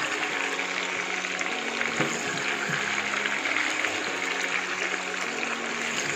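Small whole new potatoes frying in hot oil in a nonstick pan: a steady sizzle, with a couple of faint knocks from the spatula about two seconds in.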